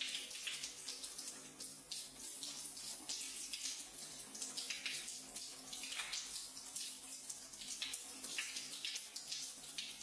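Waterfall shower spray falling steadily onto a cupped hand, a continuous hiss of water broken by irregular splashes and spatters.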